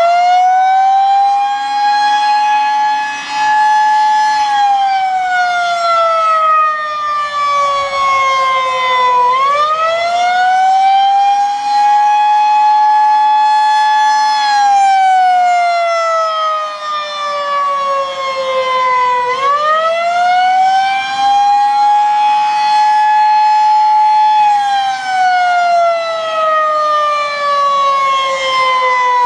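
Federal Signal 2001-SRNB outdoor warning siren sounding the Attack signal: a very loud, very high-pitched wail that rises quickly, holds, then falls slowly, repeating about every ten seconds.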